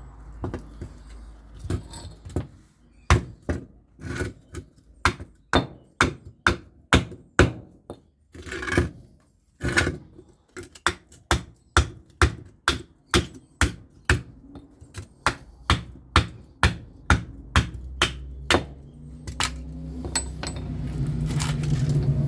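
A steady run of hammer blows on a microwave oven transformer, about two sharp strikes a second with a short break partway through. A low rumble builds near the end.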